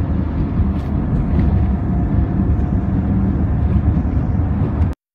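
Strong sandstorm wind buffeting the microphone, a dense steady low rumble. It cuts off suddenly near the end.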